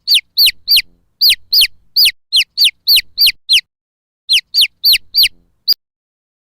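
Baby chick peeping: a run of loud, short, falling peeps, about three a second, a brief break, then four more, with a sharp click near the end.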